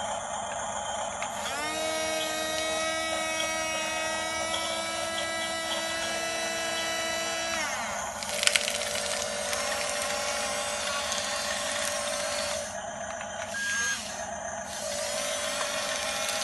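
Small electric motors of an RC model bulldozer whining, the pitch rising as they spin up about a second and a half in and dropping as they ease off some six seconds later. A short clatter follows soon after.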